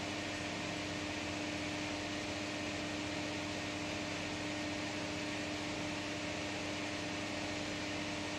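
Steady hum and hiss of the climate-control fan inside an enclosed Ferris wheel cabin, one low tone held constant over an even rush of air with no change.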